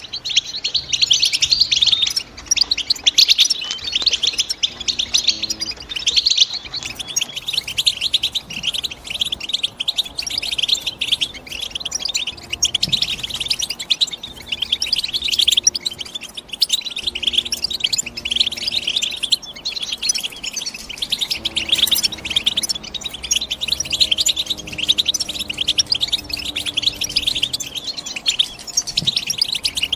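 European goldfinch singing a fast, continuous twittering song of rapid high chirps.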